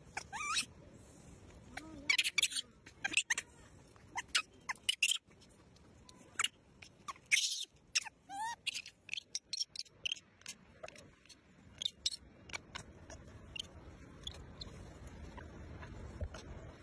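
Baby macaque giving a few short, high squeaking chirps among scattered sharp clicks and taps.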